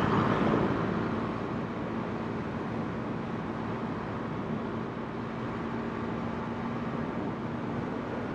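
A vehicle driving along: steady road and engine noise with a faint low hum, a little louder at the start and easing off over the first second or two.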